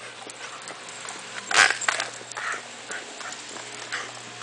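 A dog walking on asphalt in a two-wheeled rear-support wheelchair cart: scattered light clicks of her steps and the cart, with one louder sharp sound about a second and a half in.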